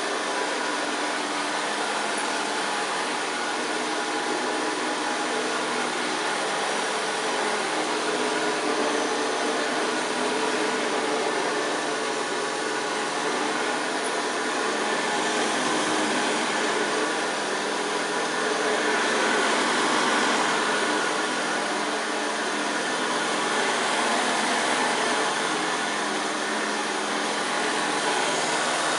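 1971 Hoover Senior 6525C upright vacuum cleaner running steadily, a continuous motor hum and rush of air that swells gently now and then.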